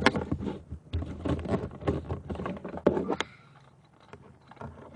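Plastic packaging being opened by hand, a quick run of crinkling, rustling and clicking that dies down a little after three seconds.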